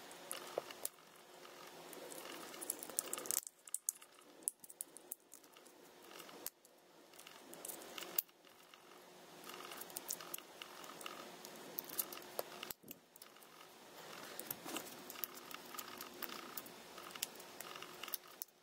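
Flathead screwdriver prying around the seam of a Chipolo ONE Spot tracker's plastic case: faint scraping with many scattered sharp clicks of tool and plastic.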